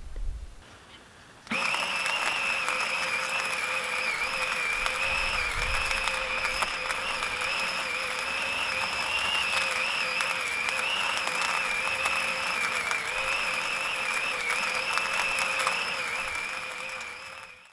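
Staresso Discovery 2 battery-powered conical burr coffee grinder running, grinding whole beans for espresso: a steady motor whine over a gritty grinding noise. It starts about a second and a half in and dies away near the end.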